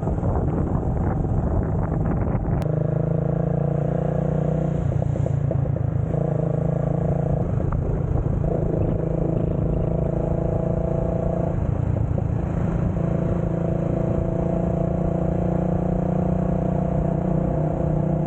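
Motorcycle engine running while riding, holding a steady pitch for a few seconds at a time, with several brief breaks and changes in pitch between the steady stretches.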